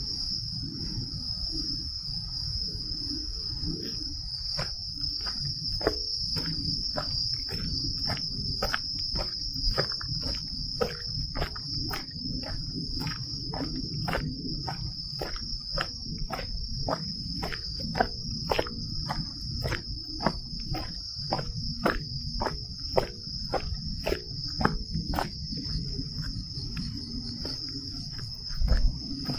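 A steady, high-pitched chorus of night-singing insects runs throughout. Over it come footsteps on a trail, sharp regular steps at about two a second, starting a few seconds in.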